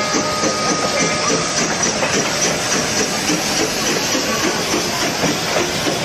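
Narrow-gauge Denver & Rio Grande Western C-19 2-8-0 steam locomotive No. 340 and its train rolling past at low speed, with a steady hiss and a running clatter of wheels on the rails.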